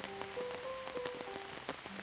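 Steady rain falling on a surface, with many separate drops clicking sharply through the hiss. A soft melody of held notes plays beneath it.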